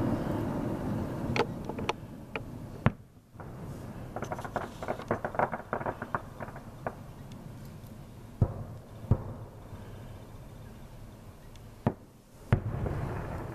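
Aerial fireworks going off. There are several sharp bangs of shells bursting in the first three seconds, then a run of quick crackling. Two louder bangs come about halfway through, and two more near the end.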